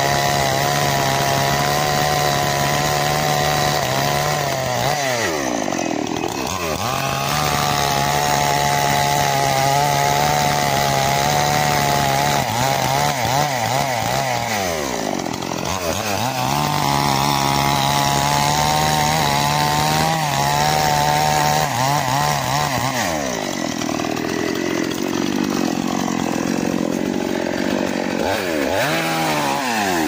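Small petrol chainsaw at full throttle cutting through a log. Its revs drop away and climb back up about four times.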